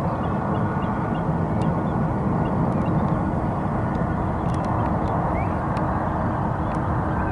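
Steady rumble of a Boeing 777-300ER's GE90 jet engines as the airliner lands, with faint short bird calls over it.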